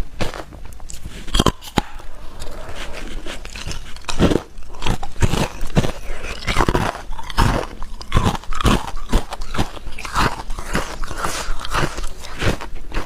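Hard clear ice being bitten and chewed: an irregular run of sharp crunches and cracks, several a second.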